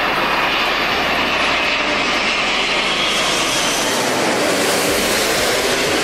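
Four-engined jet airliner passing low overhead on its landing approach: loud, steady rushing jet noise.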